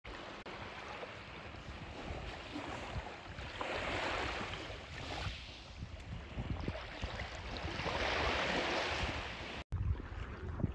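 Calm sea water washing and sloshing, swelling up twice about four seconds apart, over a low wind rumble on the microphone. The sound cuts out for an instant near the end.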